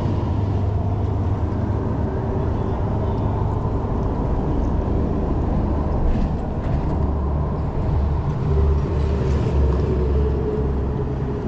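A steady, low engine drone runs without a break, with a constant rumble beneath it.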